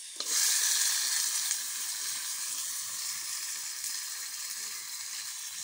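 Native chicken pieces hitting hot oil in a wok of golden-browned garlic, ginger and onion, setting off a sudden sizzle. It is loudest at first and eases to a steady frying sizzle.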